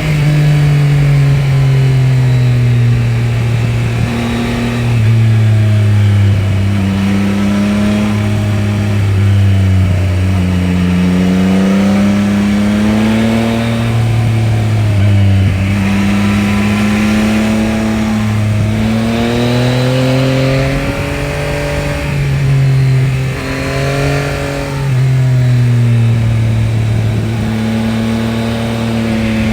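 Yamaha Tracer 9 GT's 890 cc CP3 inline-three engine, on its stock exhaust, repeatedly pulling up through the revs and dropping back. The pitch rises steadily, then falls sharply several times, as in a run through the gears.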